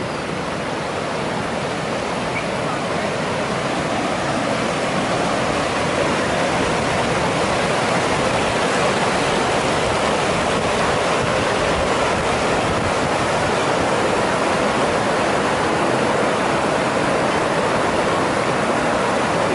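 Shallow river rapids rushing over bedrock and around boulders: a steady rush of water that grows a little louder over the first several seconds and then holds.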